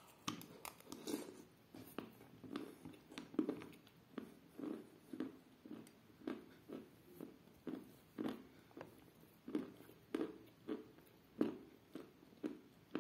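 Close-miked chewing of a mouthful of milk-soaked chalk and clay: steady, wet chews about twice a second, each with a small click.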